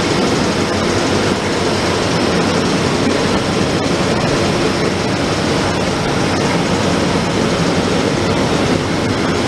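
Class 18E electric locomotive standing with its cooling blowers running, a loud steady whir.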